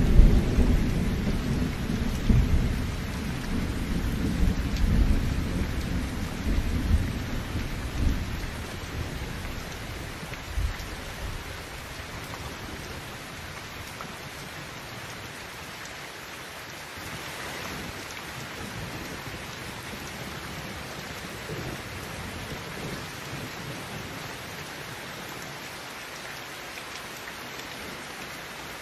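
Heavy rain falling steadily, with a long roll of thunder rumbling through the first several seconds and dying away by about ten seconds in.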